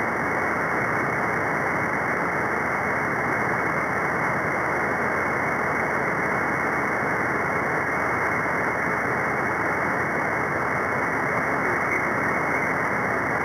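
Steady static hiss from a radio receiver tuned to an open channel on the 11-metre free band above CB channel 40, with no station coming through. The hiss is muffled, with no high end, as heard through a sideband receiver's narrow audio passband.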